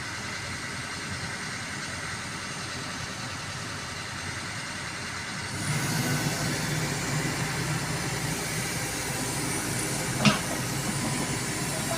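Kobelco excavator's diesel engine running steadily, then louder a little over halfway through as it picks up load. A single sharp knock sounds about ten seconds in.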